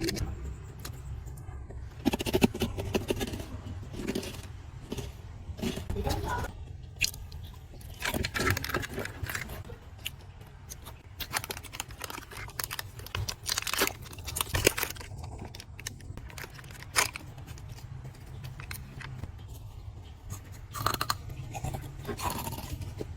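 Plastic snack packaging being handled and opened: irregular crinkles, rustles and small clicks, over a steady low hum.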